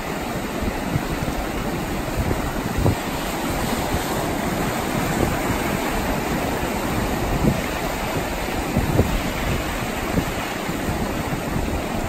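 Shallow sea surf washing in over sand at the water's edge: a steady rushing hiss of breaking foam and swash. Wind on the microphone adds frequent short, low, gusty rumbles.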